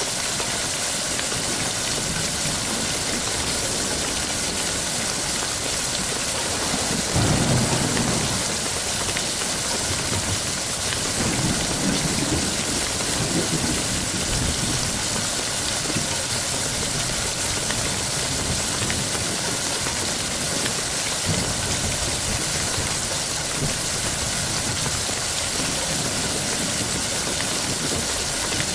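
Steady, heavy rain with low rolls of thunder, one about seven seconds in and another a few seconds later.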